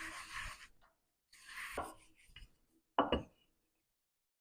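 Rolling pin rolling out poori dough, two short rubbing strokes, then a knock about three seconds in.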